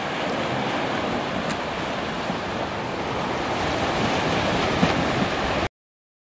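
Ocean surf washing steadily onto a sandy beach, with wind on the microphone. It cuts off abruptly to silence near the end.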